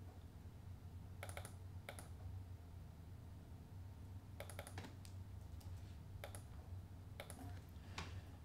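Faint, scattered clicks of a computer mouse, about seven in all, over a low steady background hum.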